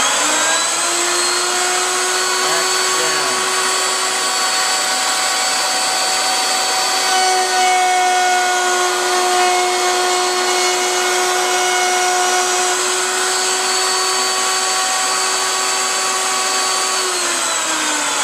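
Table-mounted router motor spinning up to a steady high whine, with a board fed past the spinning bit partway through to cut a decorative groove along its edge. Near the end the router is switched off and its whine falls in pitch as it winds down.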